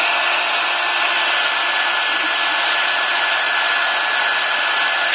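Handheld hot-air blower running steadily, a rush of air with a thin steady whine from its fan, heating the phone's home button cable to soften the adhesive holding it.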